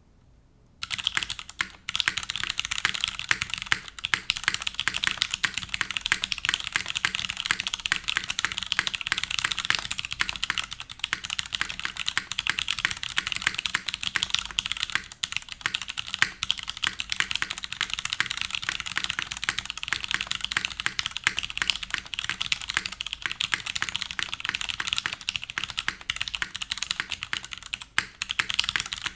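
Fast continuous typing on a Merisi Ottantaquattro mechanical keyboard with factory-lubed Cherry MX2A Brown tactile switches in a stainless steel plate, GMK keycaps and TX stabilizers. A dense run of keystrokes begins about a second in, with a few short pauses.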